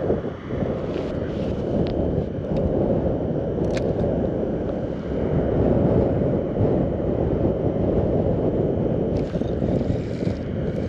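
Wind buffeting the microphone, a steady low rumble, with a few faint clicks in the first few seconds.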